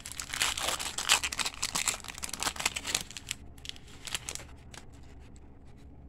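Foil wrapper of a 1991 Pinnacle football card pack being torn open and crinkled, a dense crackle for about three seconds. It then thins to a few lighter rustles and clicks as the cards are handled.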